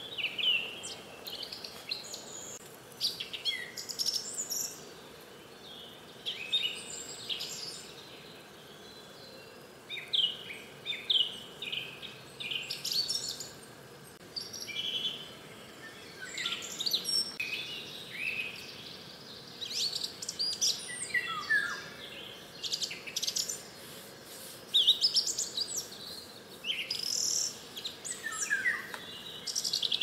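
Several songbirds singing, with overlapping short chirping phrases from different birds. A few phrases slide down in pitch. A faint steady background hiss runs underneath.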